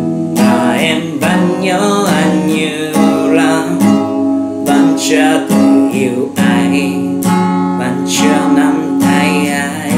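Acoustic guitar strummed in a steady rhythm, accompanying a man singing a slow ballad.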